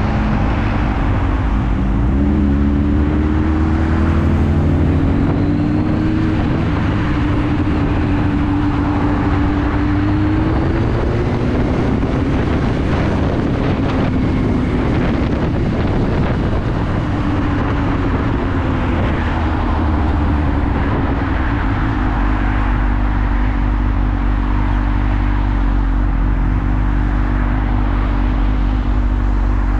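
Motorcycle engine running at low speed, its pitch rising a couple of seconds in, easing off and climbing again as the throttle is worked, over steady wind and road noise.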